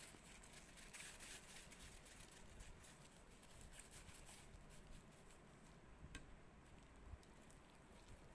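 Near silence, with faint rustling and soft ticking from plastic-gloved hands kneading and rolling mashed cassava dough in a steel bowl; one slightly sharper tick about six seconds in.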